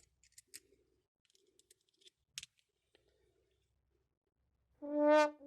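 A few faint, sharp clicks of small tools and parts being handled during knife disassembly. Near the end a loud, steady brass-like horn note comes in.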